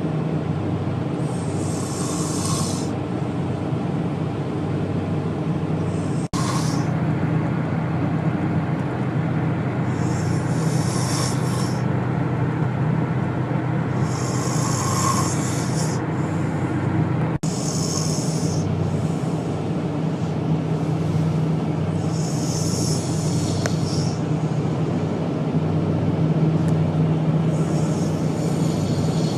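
A man snoring, with a hissing breath roughly every four seconds, over a steady low hum. The sound drops out for an instant twice.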